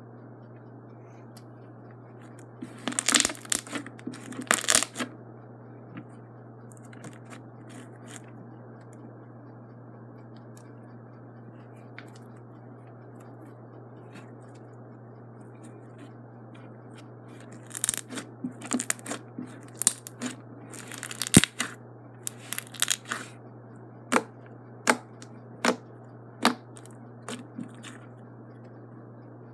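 Hands stretching, folding and squeezing a soft slime, making sticky crackling and squishing noises in two bursts, one a few seconds in and a longer one past the middle. Several short, sharp pops follow near the end. A steady low hum sits underneath.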